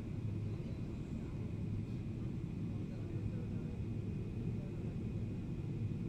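Steady airliner cabin noise in flight: a constant low rumble of engines and airflow with a faint, steady high whine over it.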